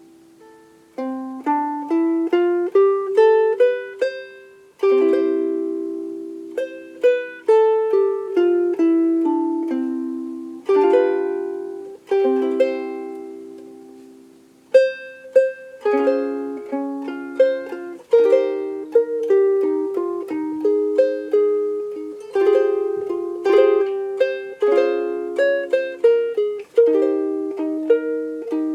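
Solid African mahogany Ditson-style soprano ukulele played solo, picked melody notes mixed with strummed chords that ring and die away, one chord left ringing for a few seconds about halfway through.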